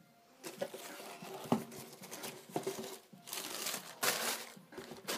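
Crinkling and rustling of packaging paper as sneakers are handled, with a few light knocks in between and a sharper knock at the very end.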